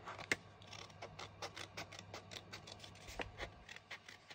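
Scissors snipping through cardstock along a curved line, a quiet run of short crisp snips at about four a second.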